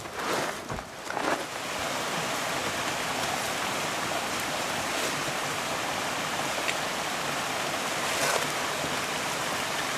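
Close rustling and a few knocks from a hiker's loaded pack and clothing for about the first second and a half. Then the steady, even rushing of a creek.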